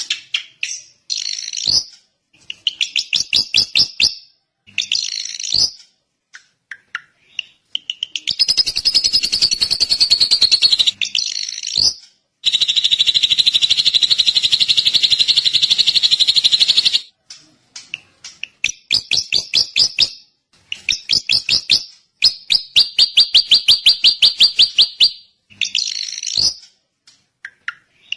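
Drongo singing: bursts of rapid, evenly repeated chattering notes separated by short pauses, with several long fast trills of a few seconds each, the longest near the middle.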